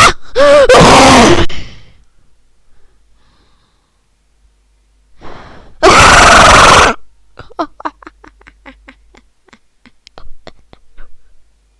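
Distorted, clipped vocal outbursts: bending cries in the first second and a half and a harsh gasp-like burst about six seconds in. These are followed by a rapid stutter of short chopped vocal fragments, about five a second, that stops around eleven seconds.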